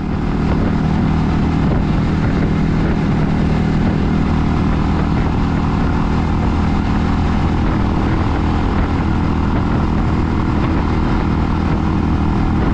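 A 250cc cruiser motorcycle engine running at a steady cruising speed, with steady wind rush over the microphone.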